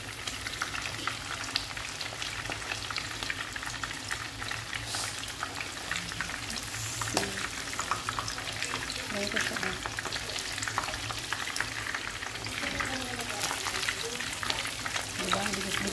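Breadcrumb-coated shrimp frying in hot oil: a steady sizzle full of fast crackles and small pops.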